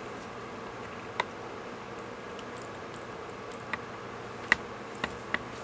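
Steady room background noise, a constant hiss with a faint hum, broken by five short sharp clicks at uneven intervals, the loudest about four and a half seconds in.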